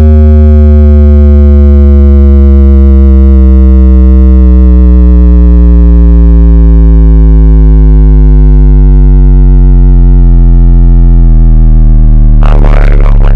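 Loud synthesized bass test tone: one deep note gliding slowly downward in pitch, with a harsh noisy burst about a second before the end.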